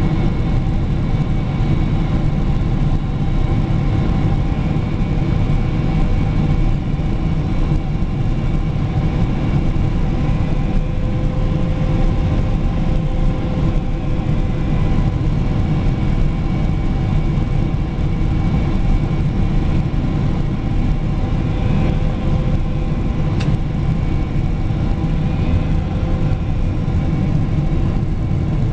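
Steady cabin noise inside a Boeing 777 during landing, from final approach to rolling out on the runway: engine and airflow noise with a deep rumble underneath.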